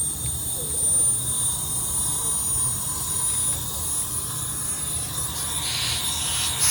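Pressurized gas hissing out of a leak in a package AC unit's refrigerant system, with a thin high whistle over a steady hiss. The hiss grows louder about five and a half seconds in. The leak is at the compressor's electrical leads, which have blown out: a sign the compressor needs replacing.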